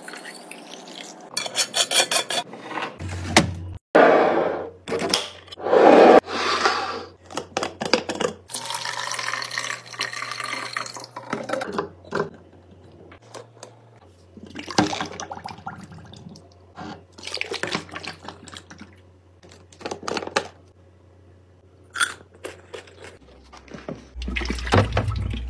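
Liquid pouring and splashing into glass and plastic jars, broken up by short clicks and knocks as the containers and lids are handled.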